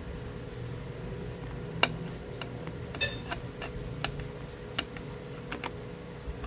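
A string of light, irregular clicks and taps from small metal tools and parts being handled on a repair bench, one of them ringing briefly, over a low steady hum.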